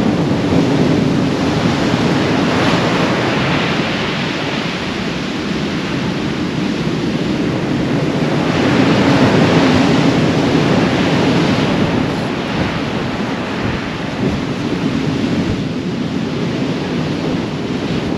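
Heavy surf breaking and washing up a sandy beach in a gale, with strong wind buffeting the microphone. The wash swells louder a few seconds in and again around the middle.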